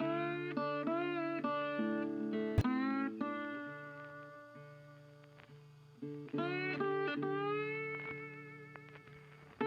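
Guitar music of plucked notes, some sliding in pitch. One phrase dies away and a new one starts about six seconds in.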